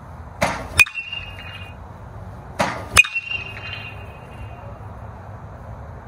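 Marucci CatX one-piece BBCOR alloy bat hitting two pitched baseballs, each contact a sharp metallic ping with a brief ringing tone. A short rushing sound comes just before each ping.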